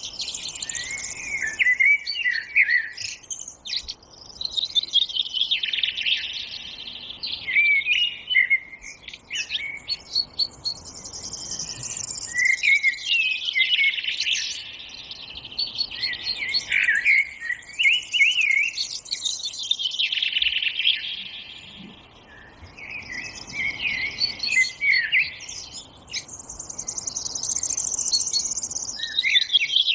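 Songbirds singing: chirping, warbling phrases that come in bursts every five seconds or so, over a faint steady background hush.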